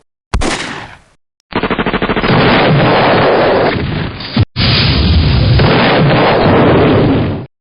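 A single gunshot, then two long bursts of rapid automatic machine-gun fire with a brief break between them.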